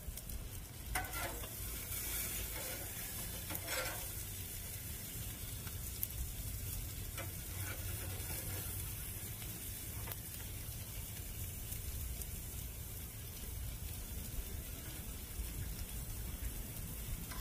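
Food sizzling on a griddle and over a gas grill: onions and peppers on the flat-top and ribeye steaks over flaring burner flames, a steady hiss over a low rumble. A few brief metal scrapes of tongs or a spatula come in the first few seconds.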